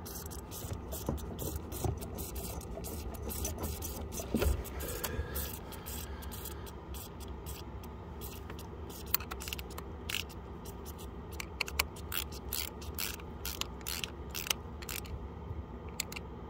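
Air spitting out of the opened bleed screw on a Volvo Penta MD11C diesel's fuel filter, heard as a run of irregular sharp clicks and crackles. The air keeps coming without stopping, which the owner takes as the sign of air being sucked in further upstream through a broken O-ring or fuel line.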